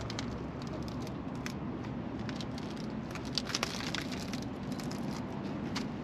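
Steady low outdoor hum with scattered light clicks and rustles.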